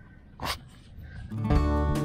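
A single short puff of noise about half a second in, then acoustic guitar background music starts near the end and continues with steady strums.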